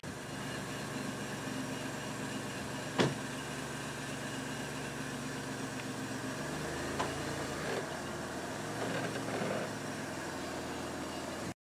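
A steady low hum of an idling engine, with one sharp click about three seconds in.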